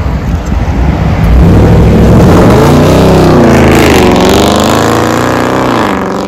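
Dodge Challenger with its mufflers deleted accelerating away from a stop. The exhaust note swells about a second in, rises and falls in pitch twice as it revs up through the gears, and gets quieter near the end as the car pulls away.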